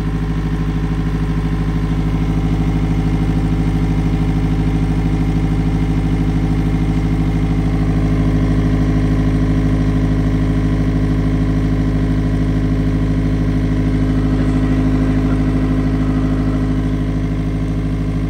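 Diesel engine of an Elgi PG 200-100 portable air compressor running steadily just after starting, holding its initial 4 bar pressure during warm-up with no air yet delivered.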